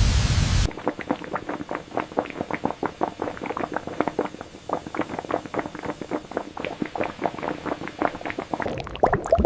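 Sugarcane syrup boiling, with many bubbles popping irregularly, several a second. A loud low rumble cuts off suddenly about half a second in.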